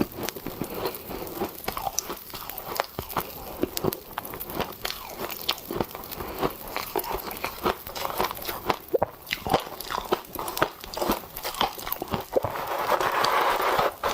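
Close-up biting and chewing of humidifier frost mixed with popping candy: a dense, irregular run of sharp crunches, turning into a steadier crackly chewing sound near the end.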